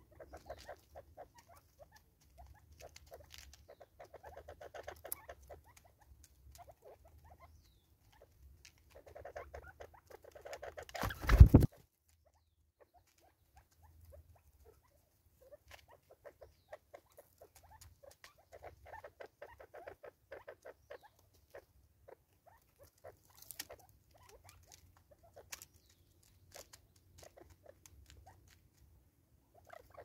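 Francolins pecking at seed in a plastic bottle feeder on a wooden stump: bursts of rapid light tapping and rattling that come and go. There is one loud thump about eleven seconds in.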